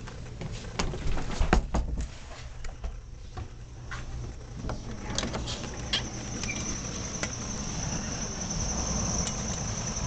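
Handling noise as a camera is moved: scattered clicks and knocks over the first few seconds. About five seconds in, a steady high-pitched insect trill sets in and carries on over a low rumble.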